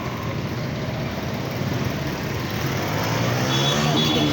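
Motor vehicle on the move: steady road and wind noise, with the engine's pitch rising and growing slightly louder about three seconds in as it speeds up.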